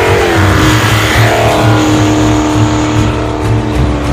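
Dodge Hellcat's supercharged 6.2-litre HEMI V8 held at high revs during a burnout, spinning the rear tyre. Its note dips slightly at the start, then holds steady and loud.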